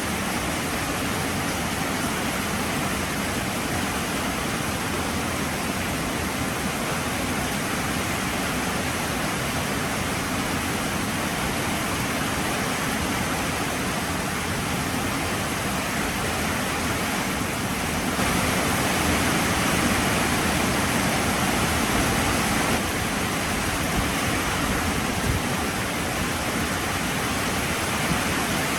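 Heavy rain falling as a steady rushing noise that grows a little louder for a few seconds after the middle.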